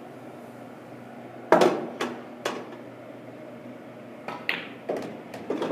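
Pool balls and cue clicking as nine-ball shots are played: sharp knocks of hard balls, each ringing briefly. The loudest comes about a second and a half in, with two more soon after, and another run of clicks from about four seconds on.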